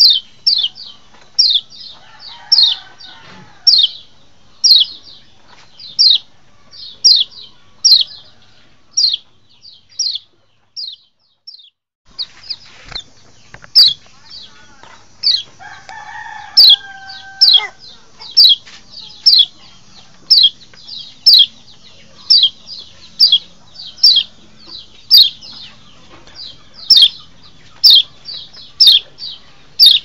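A kecial (white-eye) gives a sharp, high chip call that drops in pitch, repeated about twice a second, with a short break around ten seconds in; this is the lure call trappers play to draw wild kecial. About sixteen seconds in, a chicken gives one drawn-out call in the background.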